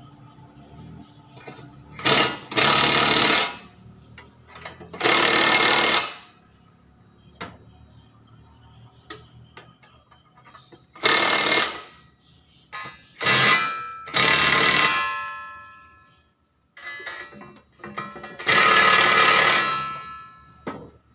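Cordless impact wrench hammering in about seven short bursts of a second or less each, running bolts down to fasten an air-conditioner outdoor unit to its wall bracket.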